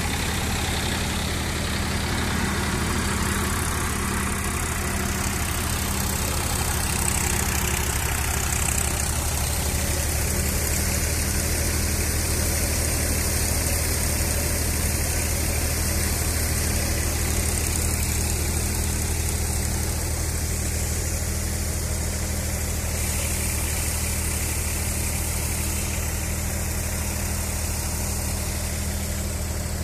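Massey Ferguson tractor's diesel engine running steadily under load, driving a haramba cutter-thresher. The thresher's drum and fans add a continuous rushing noise over the engine's low, even running.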